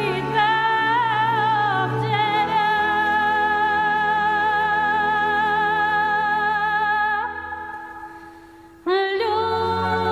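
Bulgarian-style singing over a steady low drone: a high voice with wavering, ornamented notes holds a long tone, then fades out about seven seconds in. Near the end a new phrase begins with a sharp upward swoop.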